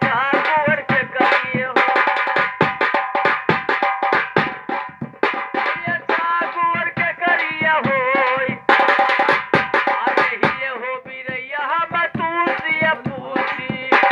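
Live birha folk song: a singer's wavering, ornamented voice over quick hand-drum strokes and steady held accompanying tones.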